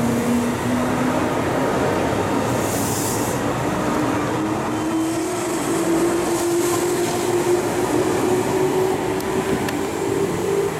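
JR 315 series electric train accelerating out of the platform: its traction motors give a whine that rises steadily in pitch over the wheel and running noise. A brief high hiss comes about three seconds in.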